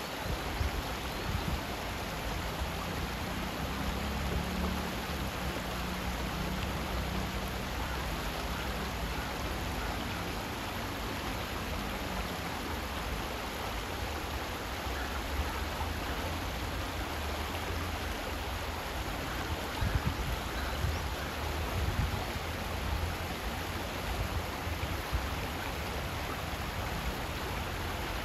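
Shallow stream running over rocks: a steady rush of water, with a low rumble underneath.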